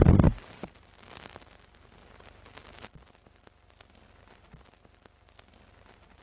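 Intro sound effects for an animated film-countdown leader: a heavy low hit at the start, then a faint crackling hiss with scattered sharp clicks, a scratchy old-film effect.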